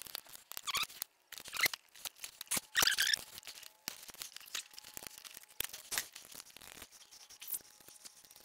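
Socket ratchet clicking in irregular runs, with small metal clinks, as connecting-rod cap bolts are run in on a crankshaft journal.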